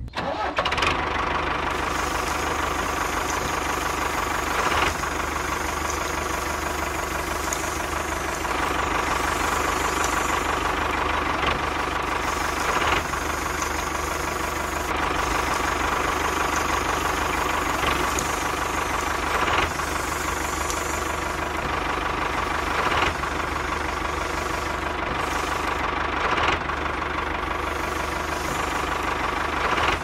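A tractor-type engine running steadily at a low, even speed, with occasional sharp knocks.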